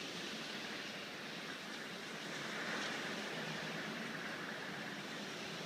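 Hurricane Sandy's storm wind rushing through trees, a steady roar that swells in a gust about halfway through.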